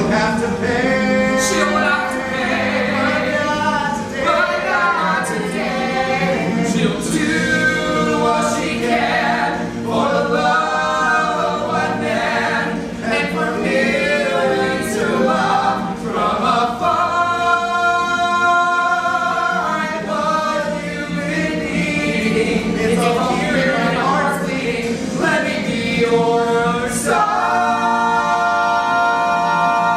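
Three men singing a Broadway show tune together in harmony, with long held notes. A sustained chord begins near the end.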